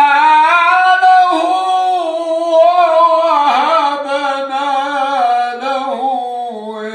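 An elderly man's voice reciting the Quran in melodic tajweed style, drawing one long ornamented phrase with the pitch wavering up and down.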